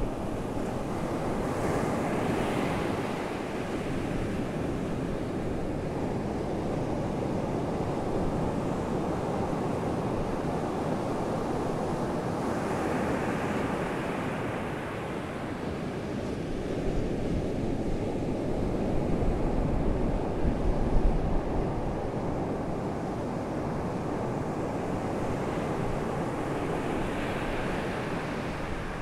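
Rushing, swelling water noise heard underwater through a GoPro's waterproof housing, with a stretch of low rumbling bumps about two-thirds of the way in.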